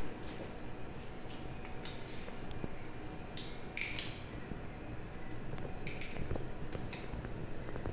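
Scattered light clicks and scrapes of orthodontic instruments being handled, at irregular moments over a low steady room background.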